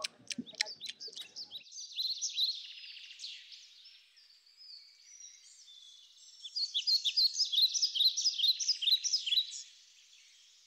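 Birdsong: many short, high chirps in two spells, the second, from about six and a half seconds in, louder and denser. Before them, a quick run of short nibbling clicks trails off in the first second and a half.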